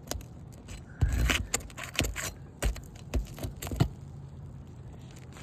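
Asphalt roof shingles being pried up and unsealed: a run of sharp scrapes and clicks, busiest through the middle, then quieter.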